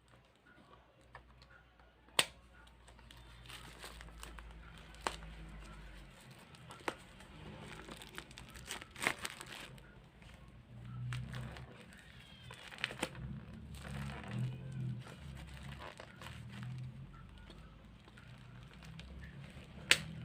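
Product packaging being handled during an unboxing: crinkling and rustling, with a number of sharp clicks and snaps scattered through, the loudest about two seconds in and near the end.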